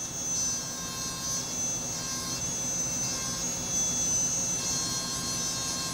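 High-speed rotary carving handpiece with a small stone bit, running with a steady high whine as it grinds fine splits into the feathers of a carved wooden decoy.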